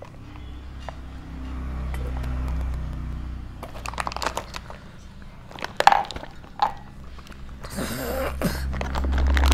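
Toddler drinking water from a glass, picked up close by a clip-on microphone: wet mouth and gulping sounds with sharp clicks of the glass against teeth, over a steady low hum. Near the end comes a short rough throaty sound, like a burp.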